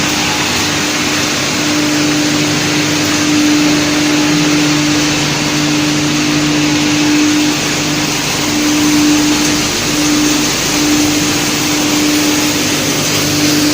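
Wood chipper running steadily: a loud, even whirring noise with a constant hum underneath.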